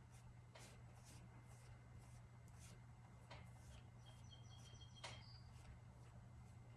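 Faint, soft strokes of a flat brush spreading decoupage medium over paper on a wooden board, over a low steady hum. Songbirds chirp faintly and briefly about four to five seconds in.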